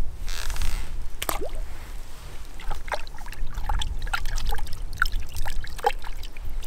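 Water trickling with small splashes, among scattered light clicks over a steady low rumble.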